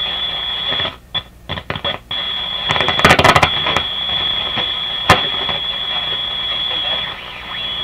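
Canadian General Electric C701 console radio playing through its speaker, with a steady high-pitched whistle throughout. The sound drops out in short gaps about a second in, then comes a loud burst of crackling static around three seconds in and a single sharp click about five seconds in.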